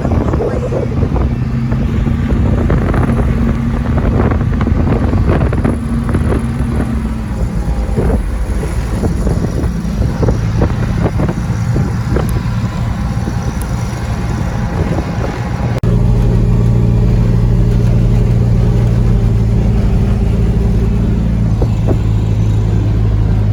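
A motor vehicle's engine running while driving, with frequent knocks and rattles. About two-thirds of the way through it changes abruptly to a louder, steadier engine drone.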